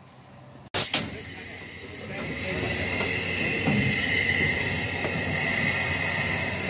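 Steam hissing steadily from the Krauss-built narrow-gauge tank locomotive 'Zillertal' at close range, with a high, even hiss that builds up about two seconds in. It is preceded, under a second in, by a single sharp click, the loudest moment.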